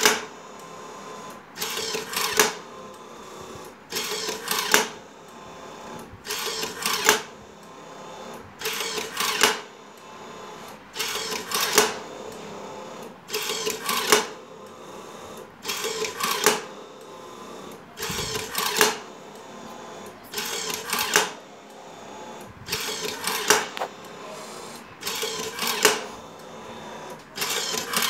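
Twin-head cotton wick-making machine running through its cycle: a steady motor hum, broken about every two and a half seconds by two short loud whirring, clattering bursts as each wick is spun and counted.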